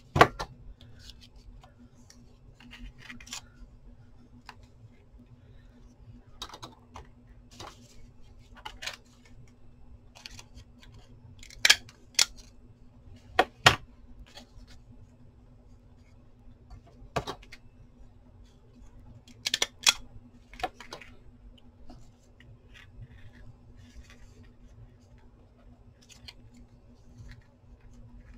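Paper scraps rustling as they are handled, with a few sharp clicks of a hand stapler, the loudest near the middle and a cluster of them about two-thirds in. A faint steady hum runs underneath.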